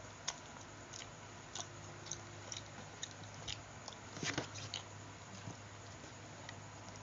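Close-up eating sounds of someone chewing grilled chicken: scattered wet clicks and smacks, with a denser run of louder ones a little past halfway, over a steady low hum.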